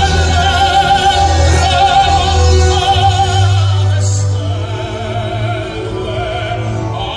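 Opera-style singing with a wide vibrato over orchestral music; it eases off a little about four seconds in.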